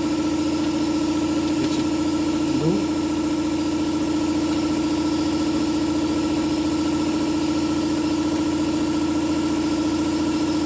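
Shop air compressor running steadily with a constant, even hum, pumping its tank up toward its cut-off pressure.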